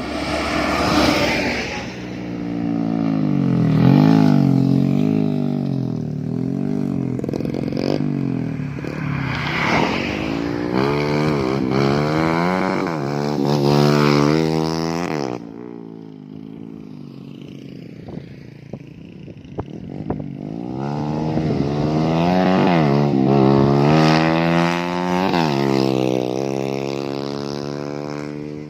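Motorcycle engine being revved with the throttle, its pitch rising and falling over and over. It settles to a lower, quieter running for several seconds past the middle, then revs up again.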